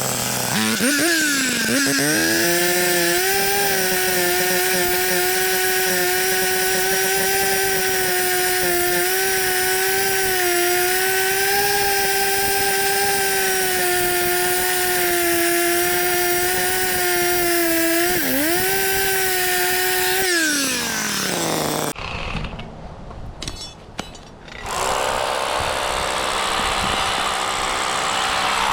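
A high-speed power tool motor spins up, runs at a steady pitch with brief dips under load, then winds down and stops about 22 seconds in. A few clicks follow, then a steady hiss.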